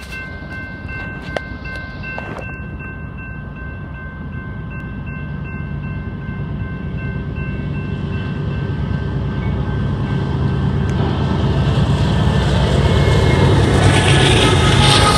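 BNSF manifest freight train led by GE diesel locomotives (a C44-9W and an ES44AC) approaching and reaching a grade crossing: the low diesel rumble and rolling wheel noise grow steadily louder as the units come alongside near the end. A steady high ringing of several tones runs through the first half.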